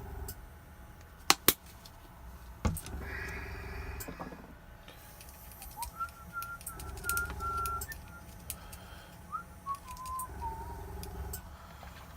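Airbrush compressor humming in short stretches of about a second, four times, as paint is pulled through the airbrush, with a few sharp clicks early on and a faint hiss of air. A thin wavering whistle tone, higher and then lower, sounds in the middle.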